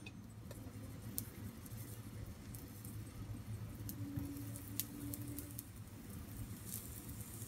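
Soft, faint pats of chickpea and green gram patties being set down one by one on a lightly oiled dosa tawa, with a few light ticks over a low steady hum.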